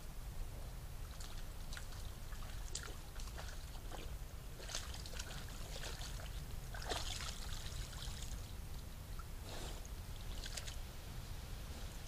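Water splashing and trickling in a series of short, irregular splashes and drips, the busiest about halfway through, over a steady low hum.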